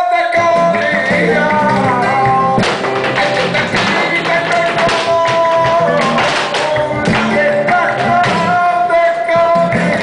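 Flamenco song with singing and guitar; the singer holds long, wavering notes. From about two and a half seconds in, sharp percussive strokes join the music.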